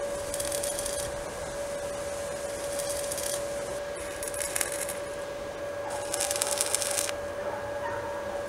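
Stick (MMA) arc welding on a steel profile-pipe corner: four short bursts of arc crackle, each under a second long, as tack welds are struck. A steady whine runs underneath.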